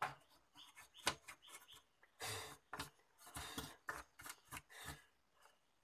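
Plastic back cover of an LED TV being shifted against its metal panel frame: irregular scraping and rubbing with light clicks and knocks, dying away near the end.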